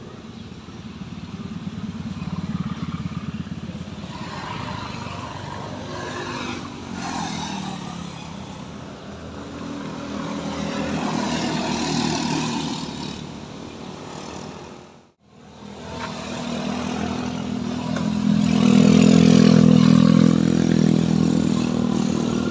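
Cars and motor scooters driving up a steep hill one after another, their engines pulling hard and revving as each passes. The loudest pass is a group of scooters near the end.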